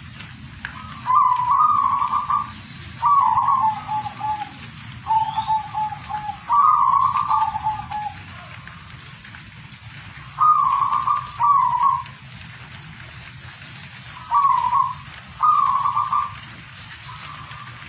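Zebra dove (perkutut) singing: a string of short phrases of quick, rattling coos on one pitch, some stepping down in pitch at their end, with a pause of about two seconds midway.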